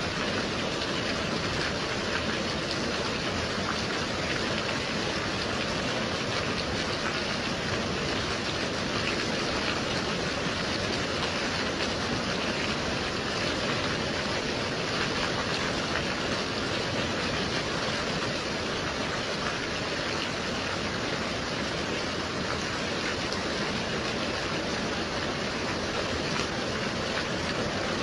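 Steady gentle rain, an even hiss with no breaks or changes in level.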